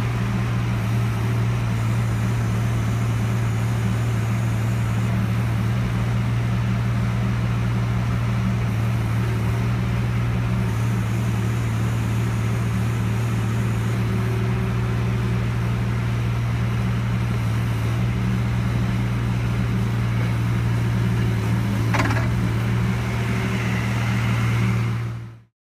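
Carter CT16-9D mini excavator's Yanmar diesel engine running steadily, with one sharp clank near the end before the sound fades out.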